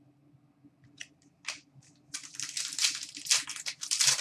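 Trading card pack wrapper crinkling and tearing as a hockey card pack is opened: a few scratchy clicks about a second in, then a rapid run of crinkly bursts from about two seconds in.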